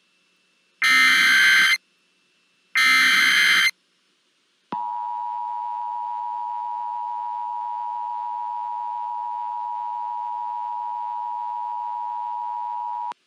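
Emergency Alert System tones. First come two harsh, buzzing data bursts of the alert header, each about a second long and a second apart. After a short gap the EAS two-tone attention signal sounds, a steady, unwavering tone held for about eight seconds that cuts off sharply near the end.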